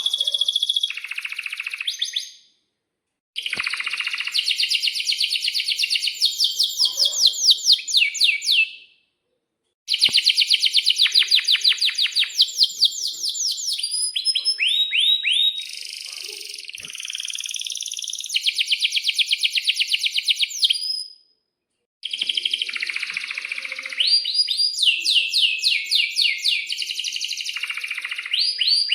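Domestic canary singing long, loud song phrases of rapid rolling trills and sharp chirping notes. The song is broken by three brief silences.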